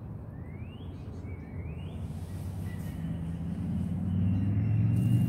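Low rumble of a motor vehicle's engine that grows louder over the last two seconds as it draws nearer. Two short rising bird chirps sound in the first half.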